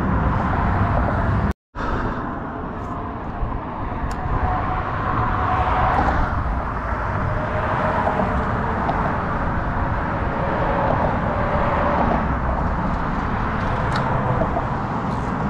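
Steady road-traffic noise, a continuous rush of cars crossing the bridge. It cuts out completely for a moment about a second and a half in.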